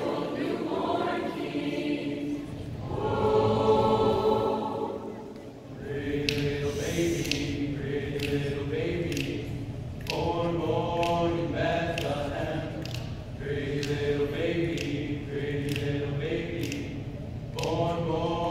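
Mixed-voice madrigal choir singing a cappella in close harmony, swelling loudest about four seconds in, easing off briefly, then going on in held chords.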